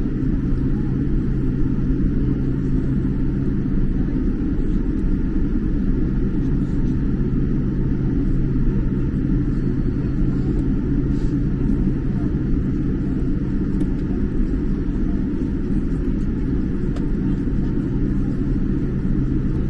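Inside a jet airliner's cabin while it taxis: a steady low rumble from the engines at taxi power and the landing gear rolling on the taxiway, with a constant low hum underneath.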